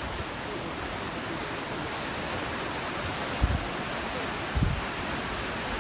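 Steady rushing of wind and sea surf, with two low gusts buffeting the microphone, about three and a half and four and a half seconds in.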